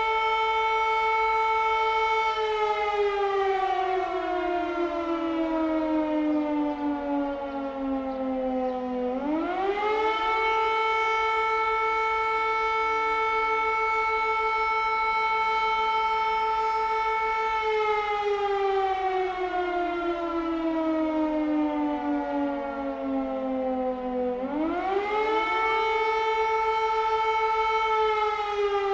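Air raid siren wailing: a held tone slides slowly down over about six seconds, then climbs quickly back up within about a second and holds steady again, twice over.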